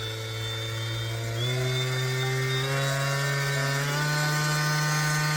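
DeWalt 20V MAX XR brushless cordless random orbital sander (DCS571B) running free, not on a workpiece, with its variable-speed dial being turned up. The motor's steady hum steps up in pitch three times, about one and a half, three and four seconds in, getting a little louder each time as the motor runs faster.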